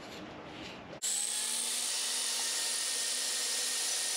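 Electric angle grinder with an abrasive disc, running steadily against an exhaust V-band flange to grind its warped face flat. It starts suddenly about a second in with a steady high whine over a grinding hiss.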